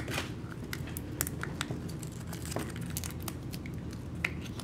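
Small plastic gumball capsule being handled and twisted open by fingers, with its paper insert: scattered soft clicks and crinkles.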